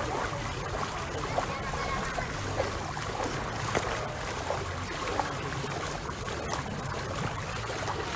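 Open-air swimming pool ambience: water lapping and splashing steadily, with a few sharper splashes, and faint voices in the background.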